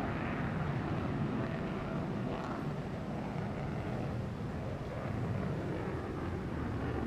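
Steady low rumbling noise with no clear tones or beats.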